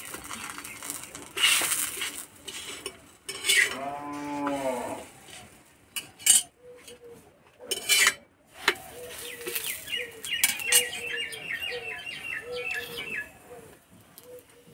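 A metal spatula scrapes and knocks against an iron tawa a few times. A cow moos once, about four seconds in. Near the end a bird chirps in a quick run.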